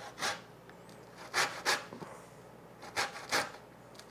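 Lemon rubbed against a metal box grater to zest it: five short scraping strokes, the middle and last ones in quick pairs.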